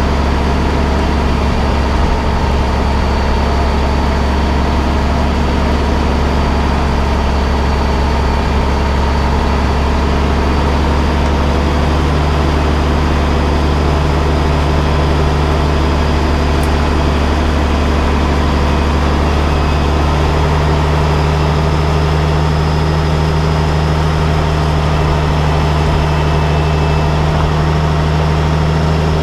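A large engine idling steadily: a constant deep hum with a faint high whine above it.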